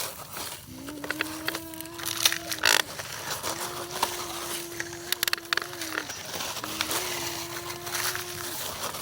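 Small electric motor of a radio-controlled construction model whining at a steady pitch in separate runs of about two seconds, four times over, with scattered clicks and crunching between.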